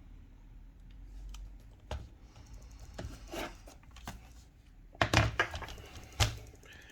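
Clicks, taps and knocks of a laptop being handled on a hard surface, loudest in a cluster about five seconds in and once more about a second later.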